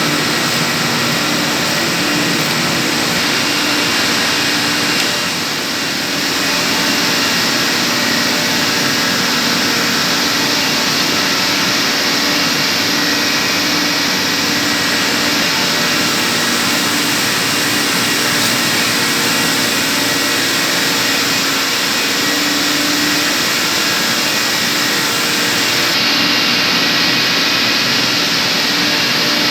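Steady, loud running noise of chiller plant machinery: an even hiss with a low hum and a few steady tones, dipping briefly about five seconds in and changing in its high hiss near the end.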